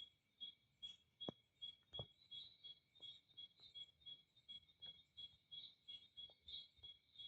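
Faint, steady insect chirping: short high pulses repeating evenly, about two to three a second, over a thin continuous tone. A few soft clicks fall among them, one about a second in and another about two seconds in.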